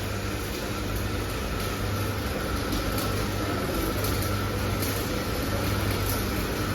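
Steady hum and whir of running machinery, with a low drone that swells and fades every second or two and no distinct blows.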